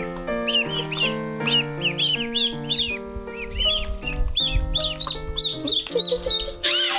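Ducklings peeping, many short high calls several a second, over background music with held notes.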